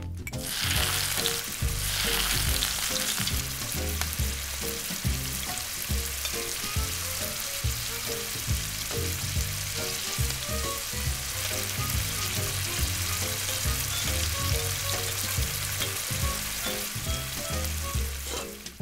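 Chopped vegetables sizzling in oil in a tiny brass wok, the sizzle strongest in the first few seconds and then holding steady.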